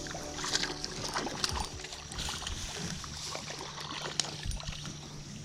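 A hooked bass being fought and reeled in: water splashing and rushing, with scattered small clicks and knocks. Background music fades out at the very start.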